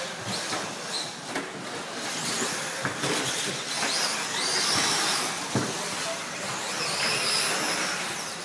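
Radio-controlled 4wd short course trucks racing on a carpet track: high motor whines gliding up and down in pitch over steady tyre and chassis noise, with a few sharp knocks.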